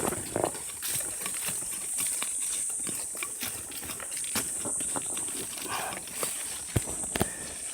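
Irregular knocks and scrapes of a hand tool digging a wild bellflower root out of stony mountain soil, with a steady high-pitched buzz behind them.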